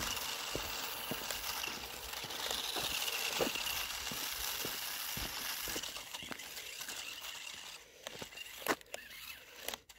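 Toy RC off-road car driving over rough ground: its small electric motor and gears give a faint steady whine under crackling and crunching from the tyres. After about eight seconds it dies down to a few scattered clicks.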